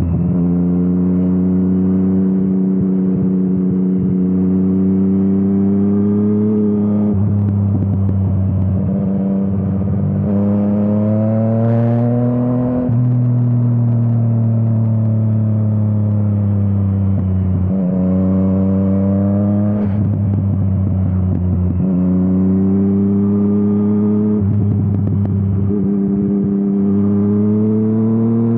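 Yamaha MT-09 inline-three engine through an Akrapovič exhaust, riding through twisty roads. The pitch climbs under acceleration, then drops sharply at each gear change or roll-off of the throttle, repeating several times.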